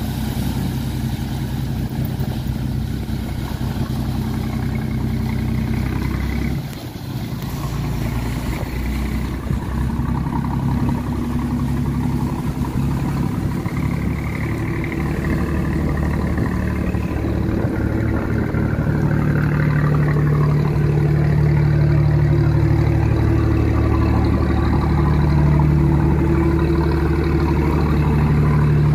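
A barge's engine running steadily, with a brief dip about seven seconds in and growing louder in the second half.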